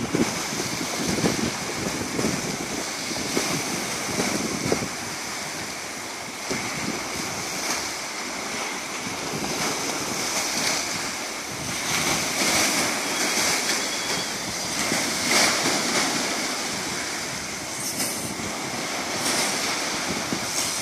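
Small sea waves washing in at the shoreline, a steady rush that swells and eases every few seconds, with wind on the microphone.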